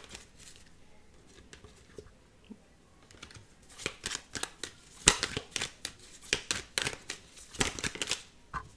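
Tarot cards being shuffled by hand. It is quiet at first with a few light clicks, then a run of quick flicking and slapping strokes starts about three and a half seconds in and stops just before the end.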